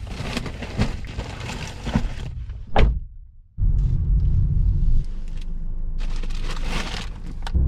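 Clicks and knocks inside a car, with a louder thump just before the three-second mark. After a brief dropout, a steady low rumble follows: the car driving, heard from inside the cabin.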